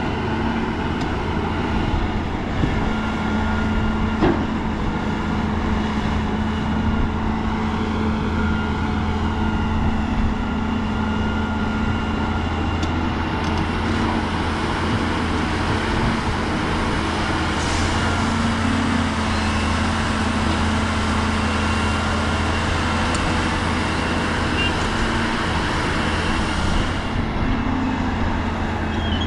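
Diesel engine of heavy earthmoving machinery running steadily, with an occasional brief knock.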